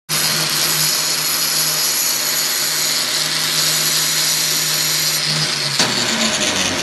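Handheld electric angle grinder running at speed, used as a makeshift sharpener to grind a TIG tungsten electrode against its disc. It makes a steady hissing grind over a constant motor hum, which starts abruptly. Near the end the sound changes with a sharp click.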